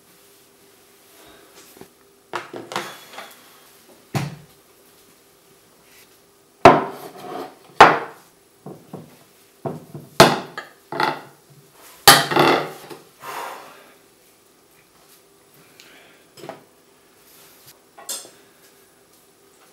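Plate and cutlery clattering on a table: a knife cutting into a chocolate cake on a plate, with a run of sharp knocks and clinks, loudest in the middle, then a few fainter clicks.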